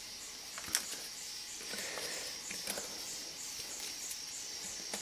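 Insects chirring in a steady high-pitched pulsing pattern, about three pulses a second. A sharp click comes about three-quarters of a second in, and there is faint rustling as dry seed twigs are handled.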